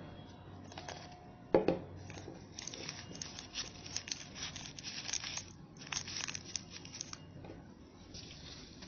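Newspaper crinkling and rustling as strips are handled and wrapped around a papier-mâché figure, busiest in the middle, with one sharp knock about a second and a half in.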